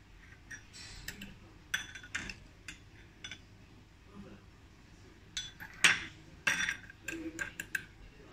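Metal spoons clinking and knocking against glass bowls in a series of short sharp clinks, a few at first and a quicker cluster in the second half.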